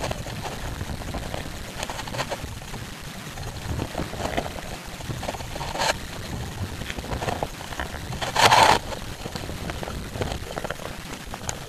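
Water rushing along a wooden sculling boat as it is rowed, with wind on the microphone and short rushes of noise from the sculls every couple of seconds; the loudest comes about eight and a half seconds in and lasts about half a second.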